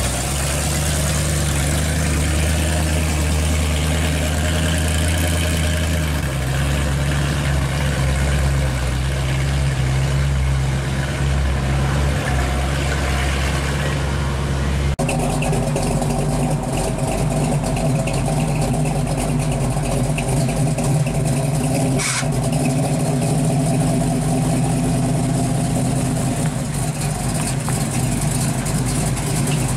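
Supercharged V8 of a 1955 Chevrolet Bel Air Nomad hot rod running at low speed as the car rolls past and away. About halfway through it cuts to a different engine idling steadily.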